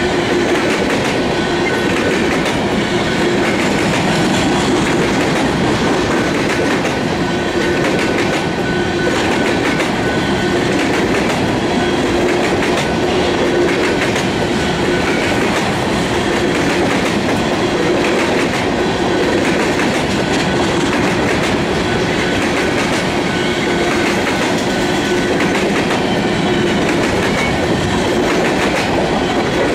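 Covered hopper cars of a freight train rolling past close by: a steady rumble of steel wheels on rail with a repeating clickety-clack as the wheel sets cross the rail joints.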